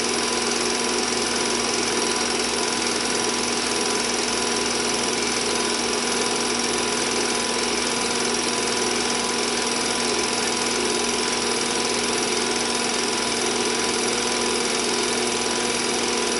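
Home-movie film projector running, its film-advance mechanism giving a steady rapid clatter with a constant hum.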